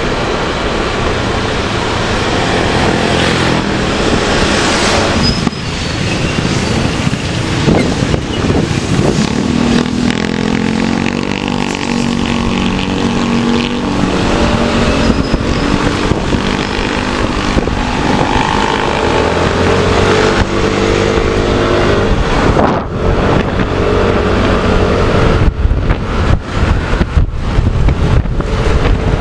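Engine of a moving vehicle running over steady road and wind noise. The engine pitch climbs and drops several times as it speeds up and slows.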